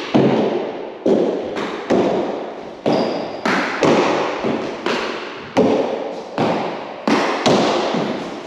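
Rugby fives ball struck with a gloved hand and smacking off the court walls in a solo rally, a sharp crack every half second to a second. Each crack rings on in the hard-walled court.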